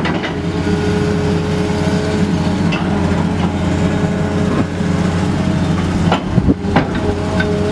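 John Deere 200LC excavator's 6.8-litre six-cylinder diesel engine running steadily with a deep hum. A whine rises in and out over it, and a few sharp knocks come about six seconds in.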